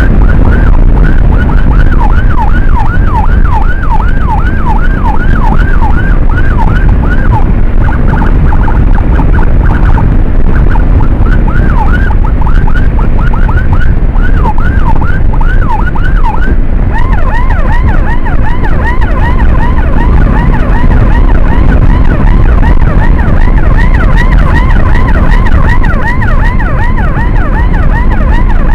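Electronic emergency siren in a fast yelp, sweeping up and down in pitch about three times a second; about two-thirds of the way through it switches to a higher-pitched yelp. Underneath runs a steady heavy rumble of wind and engine from the moving motorcycle.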